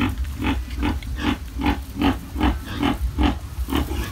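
A farrowing sow grunting in a steady rhythm, short grunts at about two or three a second.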